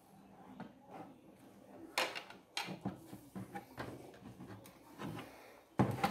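Scattered clicks and knocks of plastic parts being handled, the loudest cluster near the end as the TV's plastic back cover is lifted into place.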